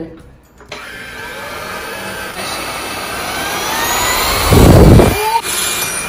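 Redkey F10 cordless stick vacuum running, starting abruptly about a second in, with a whine that rises slowly in pitch. About four and a half seconds in comes a loud low rumble lasting under a second, as it sucks up fragments of broken dishes.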